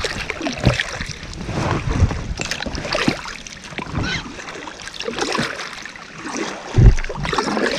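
Paddle strokes splashing in the river water beside an inflatable packraft, about one a second, with one louder low thump near the end.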